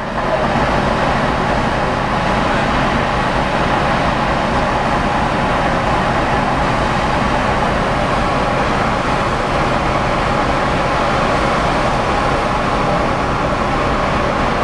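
A car ferry's engines and propeller wash running loud and steady while it manoeuvres in harbour: an even rumble and hiss with a few faint steady tones over it.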